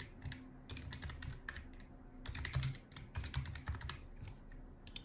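Typing on a computer keyboard: an irregular run of keystroke clicks in short bursts with brief pauses between them.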